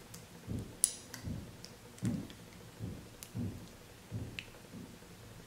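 Light clicks of plastic lip gloss tubes knocking together as they are handled, over soft, irregular low thumps of hand and body movement.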